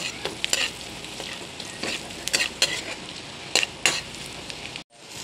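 Chopped onion and garlic sizzling in hot oil in a metal wok, with a metal spatula clinking and scraping against the wok several times as they are stirred. The sound drops out abruptly just before the end.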